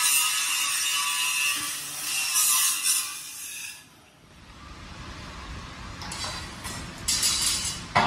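Power-tool cutting noise, harsh and steady, that stops abruptly about four seconds in. A quieter low rumble follows, with a few short scraping bursts and a sharp click near the end.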